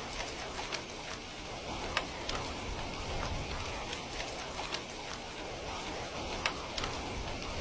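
Heavy rain falling steadily in an even hiss, with scattered sharp drops pattering and ticking on a hard surface, two of them louder at about two and six and a half seconds.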